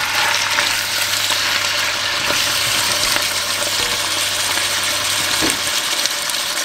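Chicken breast pieces sizzling as they are seared in a hot pan, a steady frying hiss with a few faint ticks. A low hum runs underneath and stops about a second before the end.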